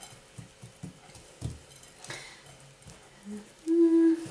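Faint soft pats of hands pressing desiccated coconut onto a lolly cake log on a plate. Near the end comes a short low steady hum, then a louder, longer one.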